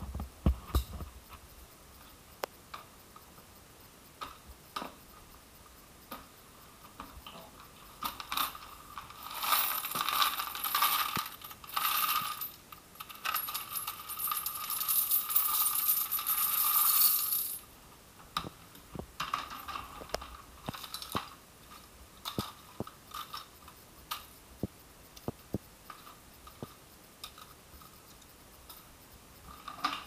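Coins clinking and sliding inside a wet-and-dry vacuum's plastic collection drum and pouring out of it, a dense rush of jingling metal for several seconds in the middle. Before and after it come single scattered clinks and taps.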